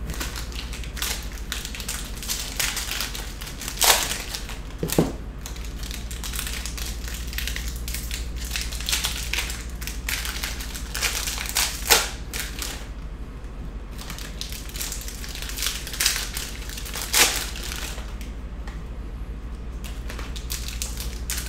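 Foil wrappers of Panini Score football card packs crinkling and being ripped open by hand, with several sharper crackles about four, five, twelve and seventeen seconds in, over a low steady hum.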